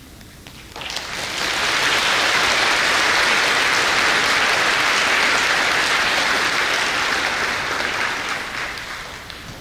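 Audience of students and guests applauding, starting about a second in, holding steady, then dying away near the end.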